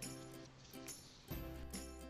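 Background music: soft instrumental notes with a steady bass, a new chord coming in about a second and a half in.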